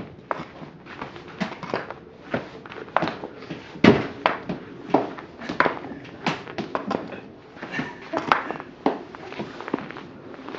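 Tennis balls being flung hard onto a concrete floor, a rapid irregular run of sharp thuds and bounces, some smacking into wire-mesh screens, with a loudest thud a little under four seconds in.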